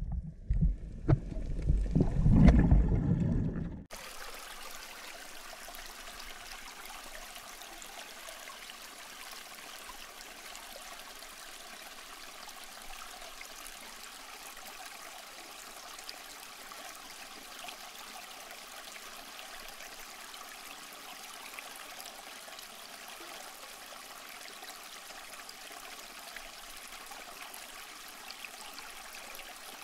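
A loud, surging underwater rumble of moving water that cuts off suddenly about four seconds in, followed by a steady, faint hiss like trickling water.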